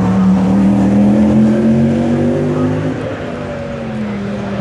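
Historic rally car's engine pulling hard, its pitch rising steadily for nearly three seconds. About three seconds in, the pitch and loudness drop and the engine runs on lower.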